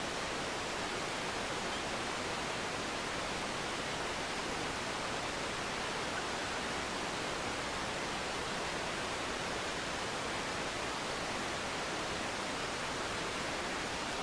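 Steady, even rushing noise with no distinct events, the kind left by wind or distant surf on an action camera's microphone.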